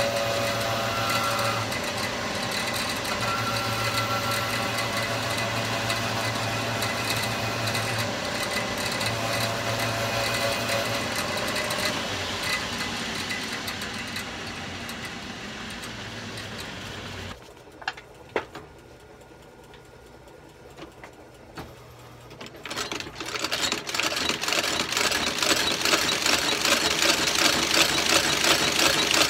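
Shoe-repair stitching machine running at a fast, even stitch rate with a steady hum. It stops about two-thirds of the way through, with a couple of clicks in the pause, then starts stitching again near the end.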